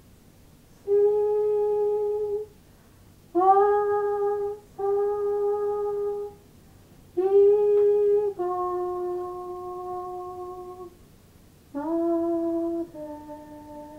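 Music: a slow solo melody of held, wordless notes, each sliding up slightly into its pitch and held steady for one to two seconds, with short gaps between them. The last few notes step lower.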